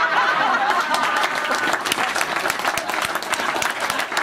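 Room of guests laughing, then breaking into applause. The laughter fades out by about two seconds in while the clapping carries on.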